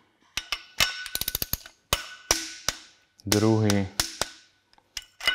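Torque wrench on a cylinder head bolt: a quick run of ratchet clicks, then a single sharp click as the wrench releases at the set torque of 35 Nm. The same happens again on the next bolt near the end.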